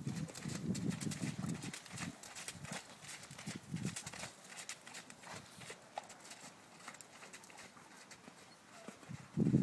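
Hoofbeats of a grey Irish Draught Sport Horse trotting under a rider on wet arena footing: a regular run of dull thuds that grows fainter as the horse moves away. A louder cluster of thuds comes near the end.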